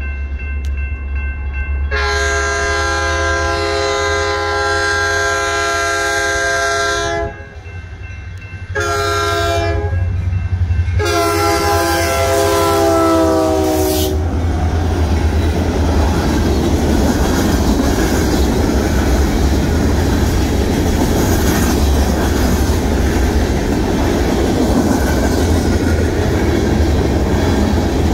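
Union Pacific diesel freight locomotives blowing the air horn for a grade crossing: a long blast, a short one, then a long one whose pitch drops as the lead unit passes, over the low rumble of the engines. The freight cars then roll past with steady wheel and rail noise and clickety-clack over the crossing.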